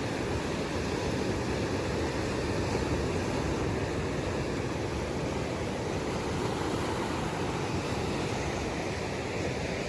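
Ocean surf: a steady, unbroken wash of waves.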